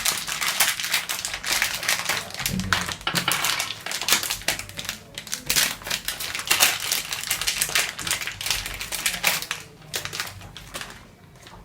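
Crinkling and rapid irregular clicking of small plastic parts and cable being handled close to the microphone, as RJ45 plugs and the UTP cable's wires are handled. The handling tails off near the end.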